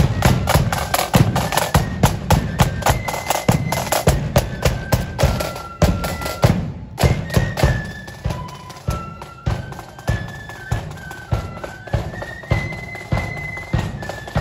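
Marching flute band playing a tune: flutes carry a stepping melody over side drums and a bass drum beating a steady march time. The music breaks off briefly about halfway through, then the flute melody goes on more quietly over the drums.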